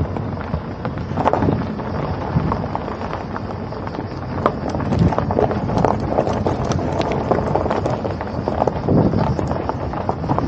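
Wind buffeting on the microphone over a low road rumble, with irregular crackling.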